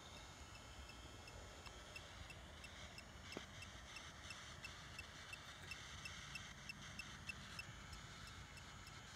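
Near silence: faint background hiss with faint, evenly spaced ticking, about three ticks a second, in the second half.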